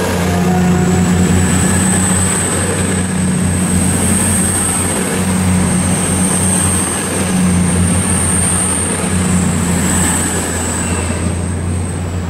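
East Midlands Trains Class 222 Meridian diesel multiple unit running past along the platform: a steady diesel drone with a thin high whine over it. It fades a little as the last coach clears near the end.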